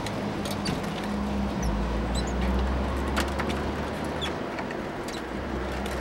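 Great tit pecking seed in a wooden feeder, a scatter of sharp taps, with a few short high bird calls. A low steady rumble underlies it and is loudest in the middle.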